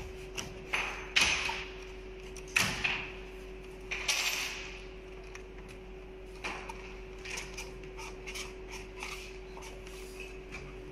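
Pattern-sewing templates being handled and pressed shut on the machine table: several sharp knocks and clatters in the first four seconds, then lighter clicks. A steady hum runs underneath.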